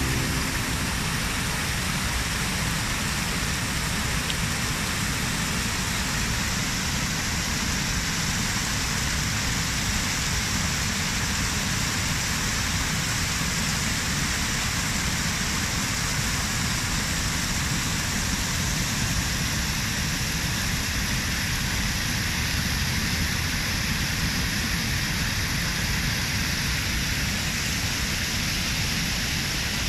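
Water spilling over the steps of a concrete cascade fountain into a pool: a steady rushing splash.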